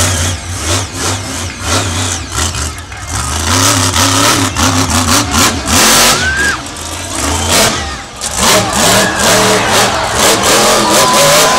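Madusa monster truck's supercharged V8 engine revving hard in repeated bursts, rising and falling as the truck wheelies and jumps, with a brief lull about eight seconds in before it revs up again.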